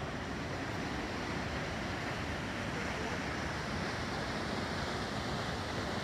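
Steady rushing noise of a waterfall plunging over a cliff into the canyon below.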